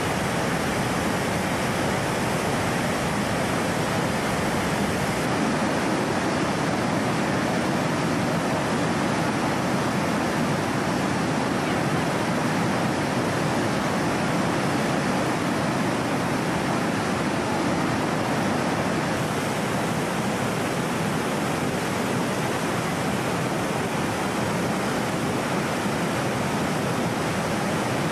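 A river in flood, its muddy brown water pouring over a weir and churning through whitewater, making a steady, unbroken rush.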